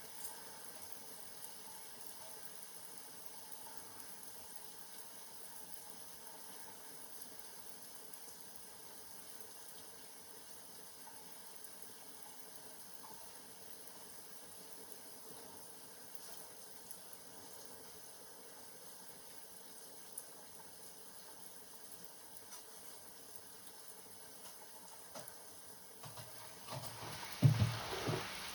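Steady, even hiss of water. Near the end there is a short, louder bout of thumps and knocking.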